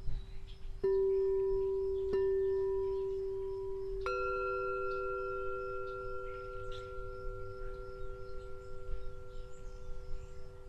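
Singing bowls struck and left to ring: one bowl struck about a second in and again a second later, then a second, higher-pitched bowl struck about four seconds in, the tones ringing on together and slowly fading.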